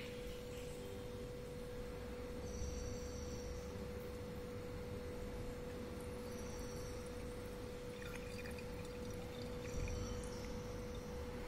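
A thick white magnesium carbonate suspension poured from a porcelain mortar through a glass funnel into a measuring cylinder, a faint, soft pouring. A steady humming tone at one pitch runs under it throughout.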